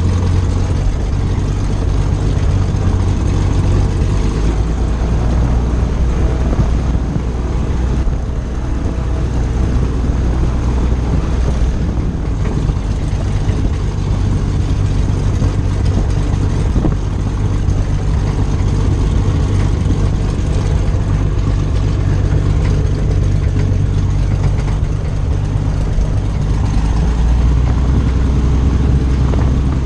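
Piper Pawnee tow plane's piston engine running at low power while taxiing on grass, heard from inside the cockpit. Its steady low drone shifts pitch slightly a few times.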